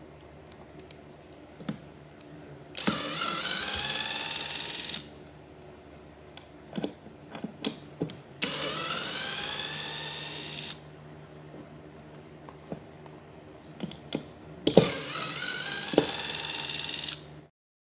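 JB801 pen-type electric screwdriver's motor whirring in three runs of about two seconds each, the pitch rising as it spins up at the start of each run, while it turns small screws in a metal plate. Light clicks of handling come between the runs.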